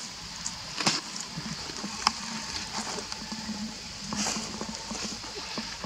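Outdoor forest ambience: a steady high-pitched drone, with a few sharp clicks and rustles about one and two seconds in.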